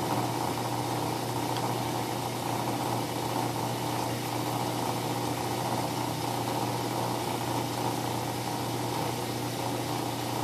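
A steady, unchanging machine hum.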